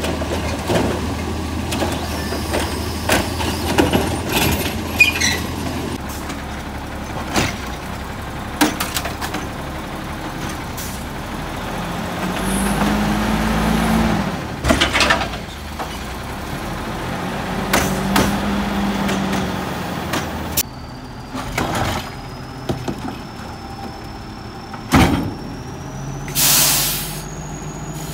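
Natural-gas automated side-loader garbage trucks running at the curb as their hydraulic arms lift and dump wheeled trash carts. The hydraulic pump hums while a cart is raised, and there are sharp knocks and bangs as the carts are shaken out into the hopper and set back down. A short loud air-brake hiss comes near the end.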